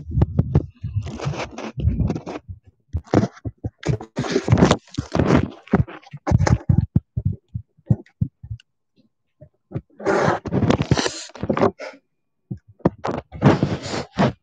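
Handling noise from a camera being carried to a new spot: scrapes, rubs and knocks on its microphone, broken by short silences, with longer stretches of rubbing about ten seconds in and near the end.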